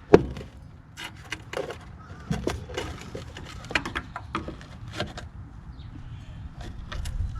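Irregular sharp clicks and light knocks of hand tools and small parts being handled during work on a golf cart's pedal switch box, with one louder knock just after the start.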